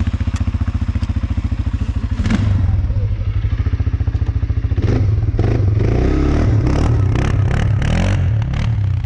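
CFMoto ATV engine idling with an even, fast pulse just after starting, then revving about five seconds in as the quad pulls away through snow, its pitch rising and falling.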